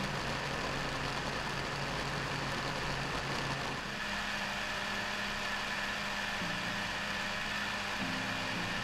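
Countertop blender motor running steadily, blending soaked cashews and liquid into a smooth, creamy mixture.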